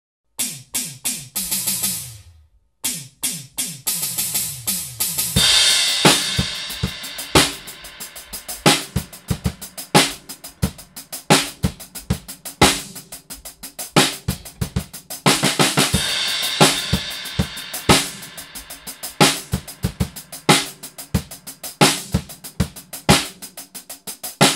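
Drum kit with a triggered 1960s Ludwig Acrolite snare and bass drum, layering acoustic drums with digital samples from a Roland SPD-SX. It opens with a run of drum hits that each sweep down in pitch. About five seconds in, a full groove starts with a crash cymbal, and a second crash comes about ten seconds later.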